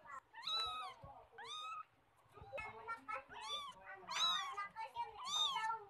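A cat meowing repeatedly, about six meows, each rising and then falling in pitch. Two come early, then after a short pause four more follow close together.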